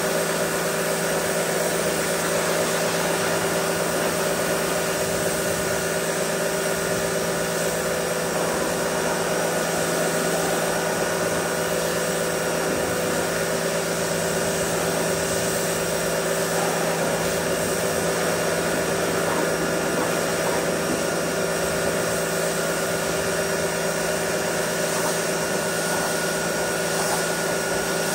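Pressure washer running steadily: a constant motor-and-pump hum with a steady hiss of the water jet spraying onto a truck's tyre and wheel well.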